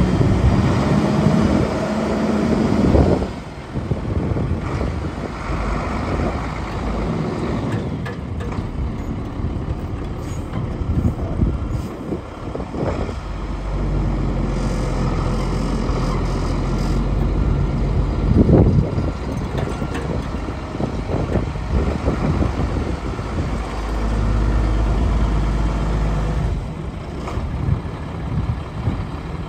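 International 4900 service truck's diesel engine idling steadily, with a few brief louder rushes of air noise.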